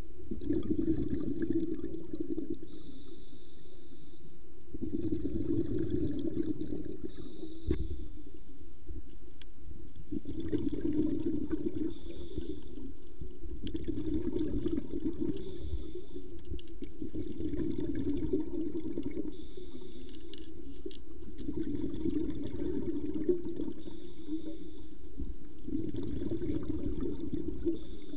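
Scuba diver breathing through a regulator underwater: a hiss on each inhale, then a bubbling rumble as the exhaled air leaves, about one breath every four seconds.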